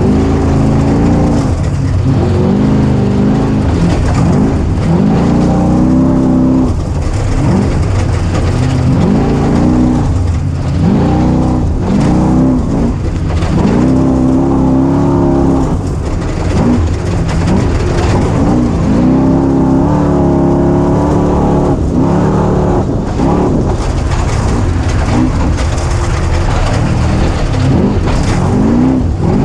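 Small vehicle engine revving up and dropping back over and over, a rise and fall in pitch every couple of seconds, as the throttle is worked on and off. Steady rushing wind and road noise runs underneath.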